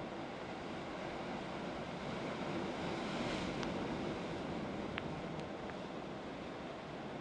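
Sea surf washing and breaking against volcanic rocks, a steady rushing wash that swells with a bigger wave about three seconds in. A few faint ticks sound over it.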